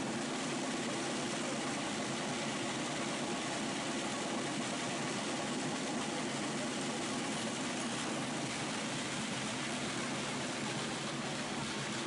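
Steady murmur of a large outdoor crowd waiting, an even wash of noise with no single sound standing out.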